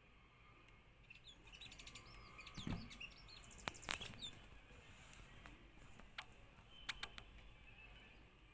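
Sunbird chirping: a quick run of thin, high chirps through the middle with two sharper knocks among them, then a few short calls later.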